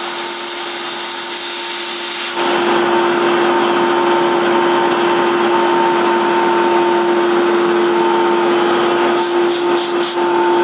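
Toyoda CNC lathe running with a steady hum and whine, stepping up louder about two seconds in and then holding steady.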